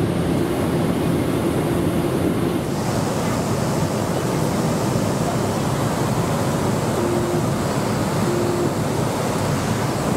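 Steady cabin noise inside a Cessna 208B Grand Caravan on final approach: its single turboprop engine and propeller running with a constant rush of air over the airframe. The noise gets slightly brighter about three seconds in.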